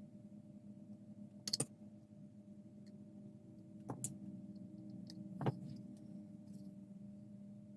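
A few small sharp clicks of hand work on a plastic scale model while fiber-optic strands are fitted: a quick double click about a second and a half in, then single clicks at about four and five and a half seconds, over a faint steady hum.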